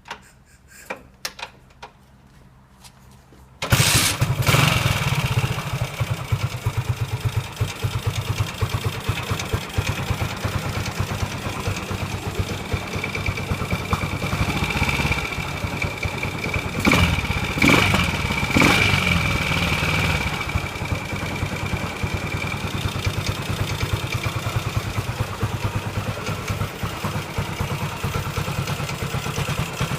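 Ducati 450 Desmo single-cylinder motorcycle engine: a few clicks, then it fires and starts about four seconds in and settles to a steady idle. It gets a couple of short blips of the throttle a little past halfway.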